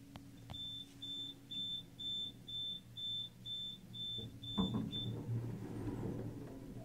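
Electronic beeper sounding a steady series of short high beeps, about two a second, ten in all, stopping about five seconds in. A low rumble with some clatter rises about four and a half seconds in and carries on.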